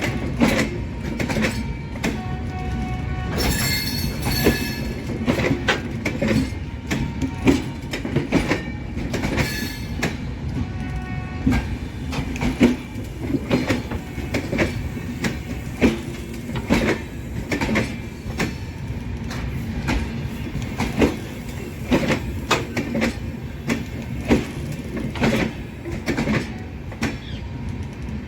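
Indian Railways express train running on the track: a steady rumble with frequent irregular clacks from the wheels over rail joints. About four seconds in there is a brief high squeal.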